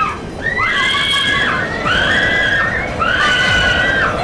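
Several riders on a motion-simulator ride shrieking, long high-pitched screams that overlap one after another, over the ride film's steady rushing soundtrack.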